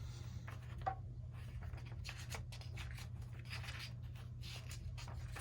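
Paper rustling as the pages of a small photo book are handled and turned, soft and irregular, over a steady low hum.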